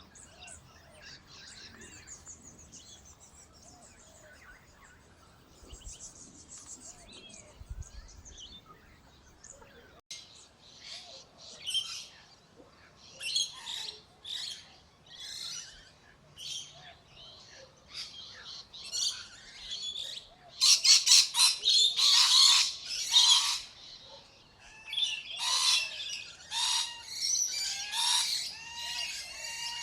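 Birds chirping and squawking, faint and sparse at first, then growing into many loud, rapid calls over the second half.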